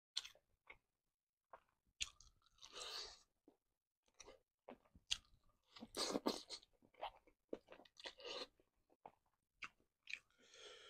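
A person eating a large squid in spicy sambal: wet, sticky mouth clicks and smacks as the rubbery flesh is bitten and chewed, in short scattered bursts. The loudest stretch of biting and chewing comes about six seconds in.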